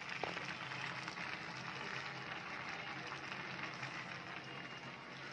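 Faint steady hiss of food cooking on the stove, with one small click just after the start.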